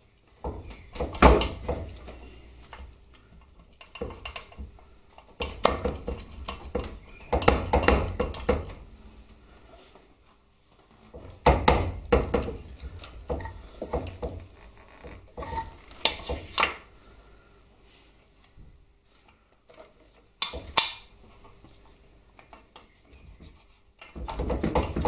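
Metal clinks and knocks in bursts every few seconds as a swing-arm pivot shaft is waggled and pushed through a Harley-Davidson touring frame and swing arm.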